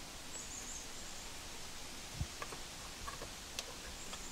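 Faint scattered clicks and one soft low knock about two seconds in, from hands working a plastic stem plug and fitting into a pool pump's open strainer housing, over a steady faint hiss.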